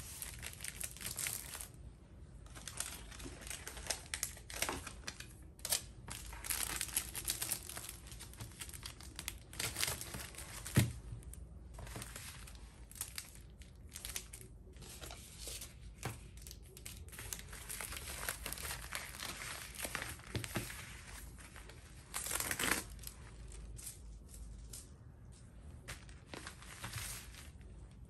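Clear plastic sleeves crinkling and rustling as they are handled and sorted, with scattered light taps and one sharper click.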